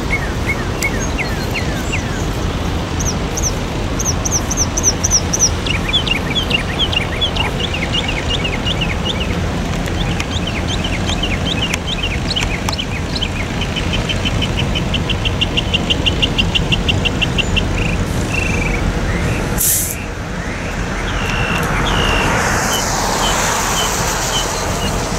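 Steady low rumble of an approaching Norfolk Southern diesel locomotive, with birds chirping in rapid trills over it. A short sharp hiss comes about twenty seconds in, then a broader hiss as the locomotive comes close.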